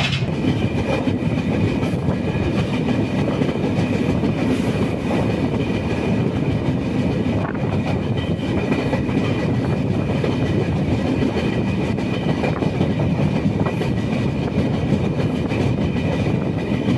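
Kongu Superfast Express passenger train running at speed: the steady noise of wheels on rails and the rocking coach, with a faint steady high whine above it.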